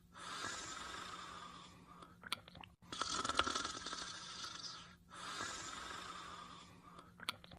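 Cartoon snoring sound effect: three rasping snores of about two seconds each, repeating, with short clicks after two of them.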